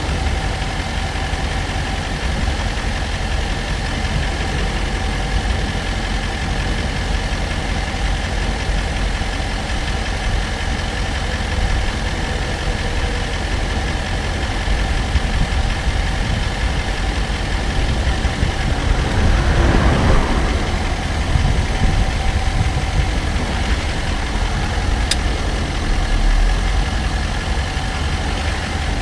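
Range Rover Sport SDV8 diesel V8 running with a steady engine and road hum. A brief swell of noise comes about two-thirds of the way in, and a single sharp click near the end.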